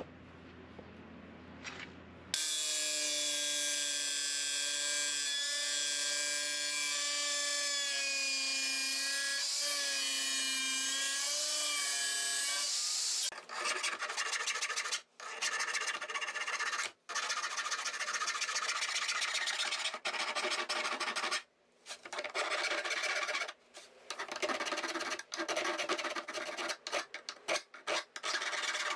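Angle grinder cutting 2.3 mm steel plate: a steady whine for about ten seconds with a grating hiss, its pitch sagging a little under load, then broken into short bursts of cutting with brief pauses.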